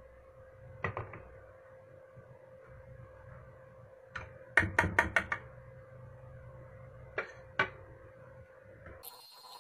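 Sharp knocks of a kitchen utensil against a bowl as lumpy batter is strained through a sieve. There is a pair about a second in, a quick run of about five taps midway, and two more near the end, over a faint steady hum.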